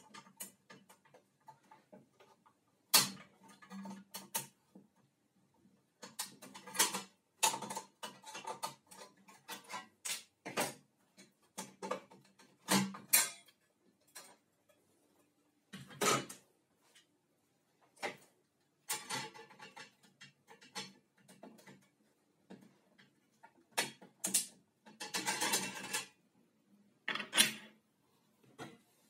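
Irregular clicks, knocks and clatter of metal and plastic circular-saw parts being handled, pulled off and set down on a wooden bench, with a few louder taps scattered among quieter handling noise.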